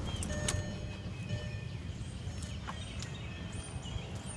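Volkswagen VR6 engine idling steadily after a start, with short high chirps and thin tones over the low rumble.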